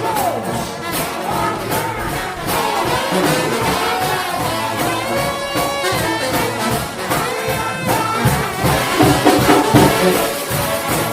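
A United House of Prayer trombone shout band playing a gospel tune: a loud, full brass ensemble over a steady percussion beat.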